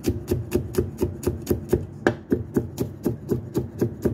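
A Chinese cleaver rapidly chopping garlic on a thick wooden chopping block, with a quick even run of about six knocks a second.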